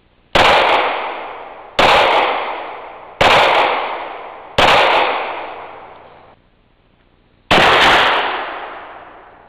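Four handgun shots about a second and a half apart, each followed by a long fading echo. After an abrupt cut, a single shot from a Martini-Henry single-shot black-powder rifle near the end.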